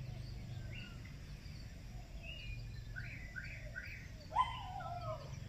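Birds chirping: scattered short calls, a run of four quick repeated notes just past halfway, and a louder call that slides down near the end, over a low steady background hum.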